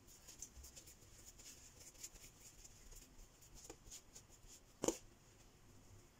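Faint rustling and scratching of hands rolling a ball of bread dough on a dusted granite countertop, with a single soft knock about five seconds in.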